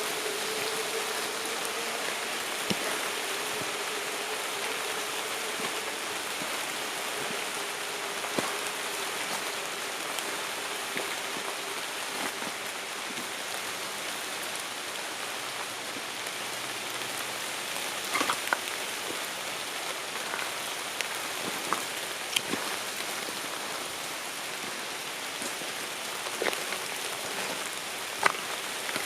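Light rain falling on tree leaves: a steady patter with scattered sharper drop hits.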